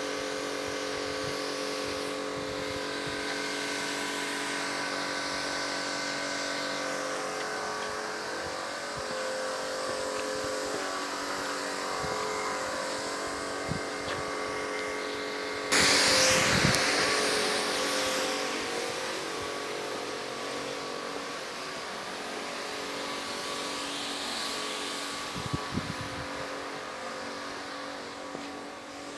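A machine motor running steadily with a constant hum. About halfway through, a loud hiss starts suddenly and slowly fades over several seconds, and a few light knocks come near the end.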